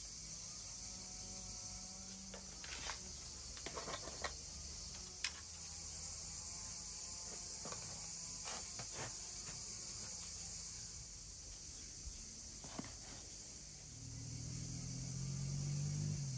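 Steady high-pitched chirring of crickets, with a few light clicks and knocks from plant pots being handled, and a low hum coming up near the end.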